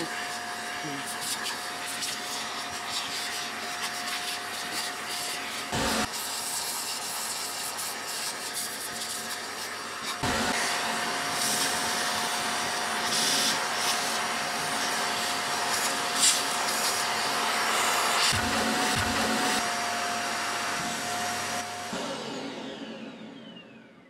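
Shop vacuum running steadily through a thin homemade nozzle (a garden hose connector with a quarter-inch hose), sucking sawdust out of a bandsaw's wheel housing, with scattered crackles of debris going up the hose. About ten seconds in it gets louder. Near the end the motor is switched off and winds down with a falling whine.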